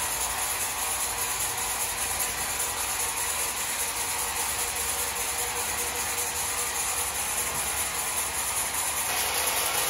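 Sawmill machinery running steadily, an unbroken mechanical noise.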